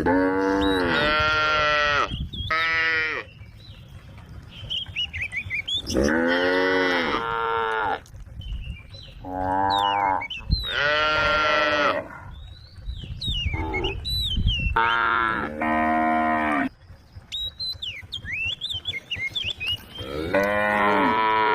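Cows mooing repeatedly: a string of long, loud calls a second or two each, sometimes two in quick succession, with short pauses between.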